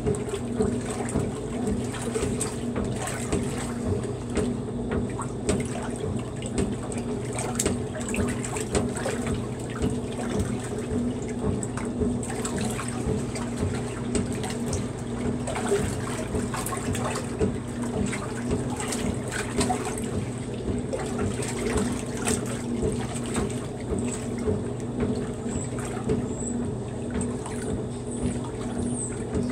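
Maytag wringer washer agitating a load of clothes in soapy water: rhythmic sloshing and swishing over a steady low hum.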